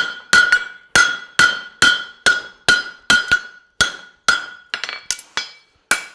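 Farrier's hammer striking a steel horseshoe held in tongs on an anvil, about two to three blows a second, each followed by a short metallic ring. The blows turn lighter and more spaced around five seconds in, then pick up again.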